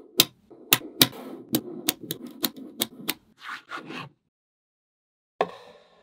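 Small neodymium magnet balls clicking and snapping together as cubes of them are pushed and joined: a quick run of about a dozen sharp clicks over three seconds, then a pause and one more click near the end.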